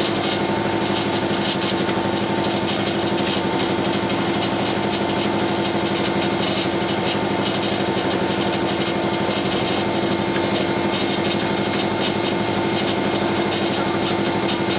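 Rally car engine idling steadily, heard from inside the car's stripped cabin: an even drone that neither revs up nor drops.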